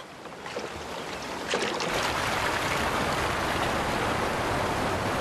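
Rushing creek rapids: a steady wash of fast-flowing water that swells up about two seconds in, with a few short splashes just before.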